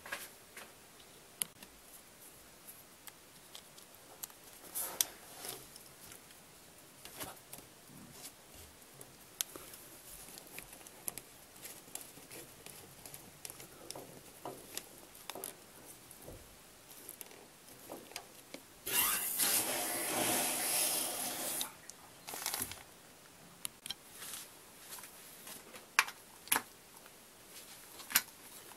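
Hands working washing-machine hose fittings and a water valve: scattered clicks, knocks and rustles. Loudest is a hissing rush lasting about three seconds, two-thirds of the way through. Two sharp clicks come near the end.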